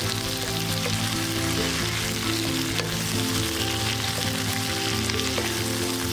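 Sliced tomatoes and onions sizzling in hot mustard oil in a karahi, stirred with a wooden spatula, with soft background music underneath.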